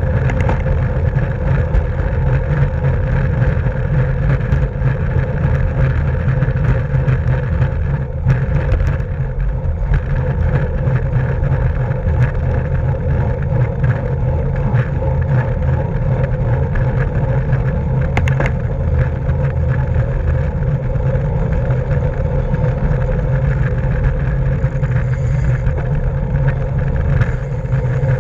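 Steady rush of wind and road noise on a camera riding with a racing bicycle at speed, a continuous low roar with a faint steady hum from the tyres and drivetrain.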